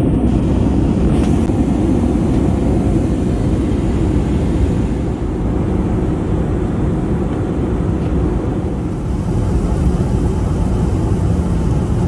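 Steady, deep rushing noise of a passenger airliner heard from inside the cabin: engine and airflow noise running evenly.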